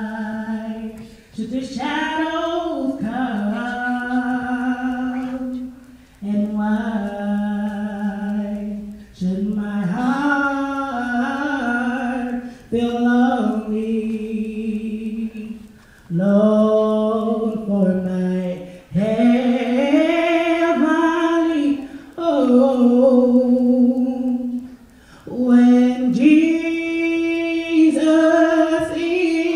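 A man singing solo without accompaniment in long held notes, phrase after phrase of a few seconds each, with a short breath between phrases. His notes climb higher near the end.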